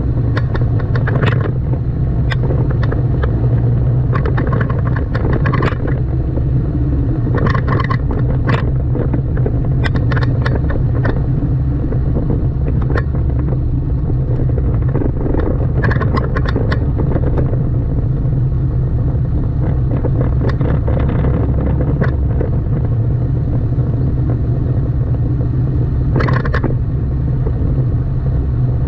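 Car being driven on city roads: a steady low engine and road rumble, with scattered clusters of short clattering knocks every few seconds.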